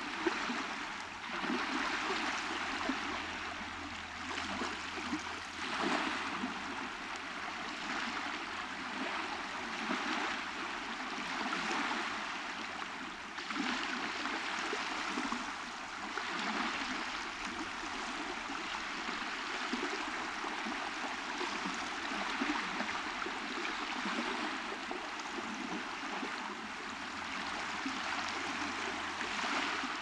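Small ocean waves washing onto a sandy beach: a steady wash of surf that swells and eases every few seconds.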